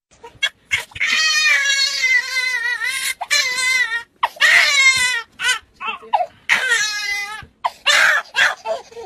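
A high-pitched voice wailing loudly, a series of long, wavering cries broken by short gaps.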